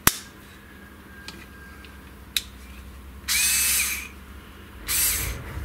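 Small 3.6-volt cordless screwdriver run twice in short bursts under a second long, its motor and gearbox whine rising and falling with each run. A sharp click right at the start and a lighter one about two seconds in come before the runs.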